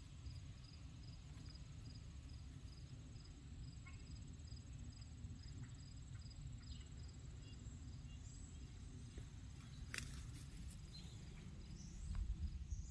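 Insects chirping in a garden: a faint high chirp repeating about twice a second over a steady high trill, with a low rumble underneath. A single sharp click comes about ten seconds in, and low thumps near the end.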